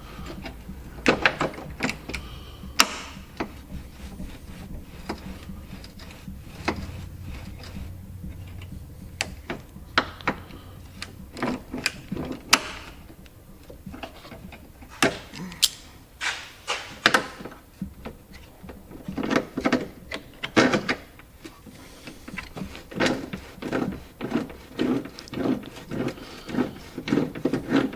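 Scattered clicks, taps and scraping of a hand tool working a stuck rivet nut back and forth to free it.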